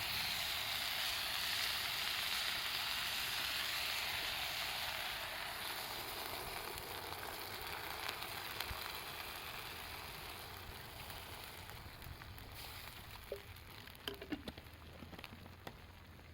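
Food sizzling in hot oil in a pan over a campfire. The sizzle slowly dies down, and a few light clicks or crackles come near the end.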